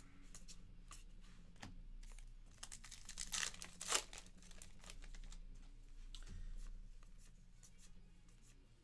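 A trading card pack wrapper torn open and crinkled, loudest about three to four seconds in, with softer rustling and sliding of baseball cards being handled and flipped through.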